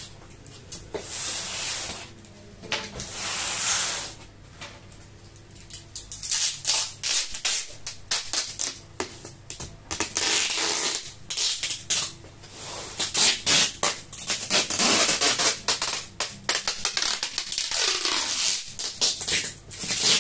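Packing tape ripping off the roll in repeated strips of a second or two and being pressed onto a cardboard box, with clicks and rubbing from handling between strips; the strips come more often after the first few seconds.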